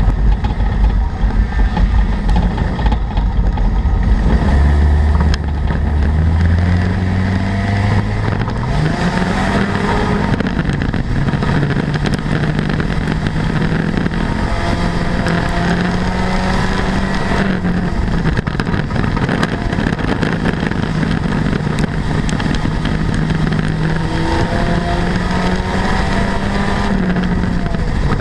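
Front-wheel-drive street-stock race car's engine at racing speed, heard from inside the cockpit over chassis rattle. The note climbs steeply over the first several seconds, then holds high with a few brief dips.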